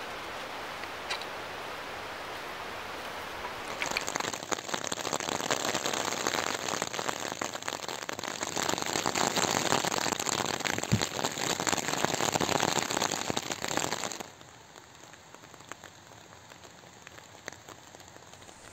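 Rain pattering densely on ripstop fabric, a fast crackle of countless drop hits lasting about ten seconds. It is framed by a softer steady hiss before it and a quieter one after it drops away suddenly.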